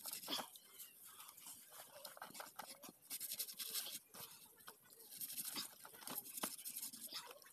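Long knife cutting and scraping through raw pork on a pig carcass: faint, irregular crunching and scraping, louder in short stretches about three and five seconds in.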